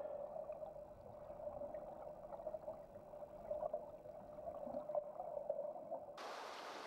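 Muffled gurgling and rushing of stream current heard from underwater. About six seconds in it changes abruptly to a steady hiss.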